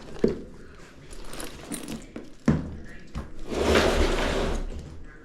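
Handling noises: two sharp knocks, then a scraping rush lasting about a second near the end, as furnace parts are worked on.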